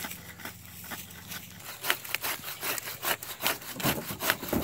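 Hand saw cutting through a tree branch for firewood, in quick rhythmic strokes that start about two seconds in. Before the sawing there is a steady low hum.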